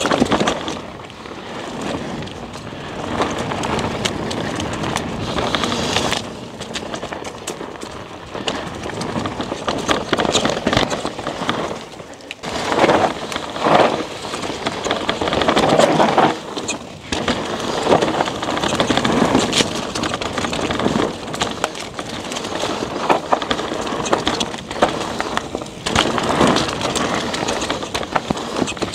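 Rocky Mountain Altitude PowerPlay e-mountain bike coasting down a dusty, loose dirt singletrack with a broken chain: tyres crunching over dirt and leaf litter, with frequent knocks and rattles over bumps, the noise swelling and easing with speed.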